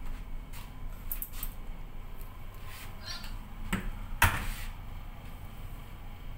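A few light clicks, then one loud door knock about four seconds in, over the steady low hum of the ship.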